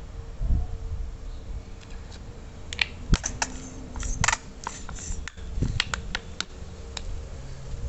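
Plastic squeeze bottle with a flip-top cap being handled and squeezed: a quick run of sharp plastic clicks over a few seconds in the middle, with a few low thumps of handling.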